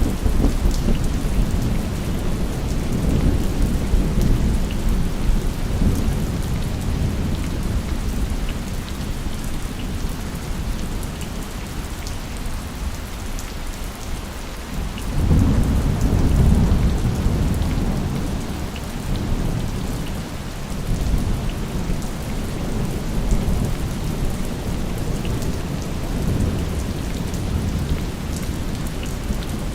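Steady heavy rain hissing, with rolling thunder: a low rumble at the start that dies away over several seconds, and a second rumble breaking in about halfway through and fading slowly.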